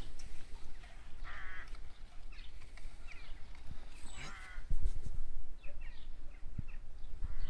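Harsh, rasping bird calls, one about a second in and another about four seconds in, with fainter chirps between, and a dull low knock just before five seconds in.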